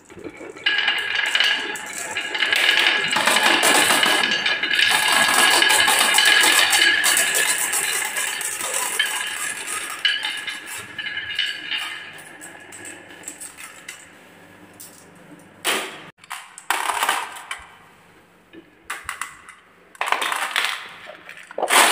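Dozens of glass marbles rolling and rattling down wavy-grooved wooden tracks and clattering into a plastic toy truck's bed, a dense continuous rattle that thins out after about twelve seconds. Scattered knocks and clicks follow later as the toy truck is handled.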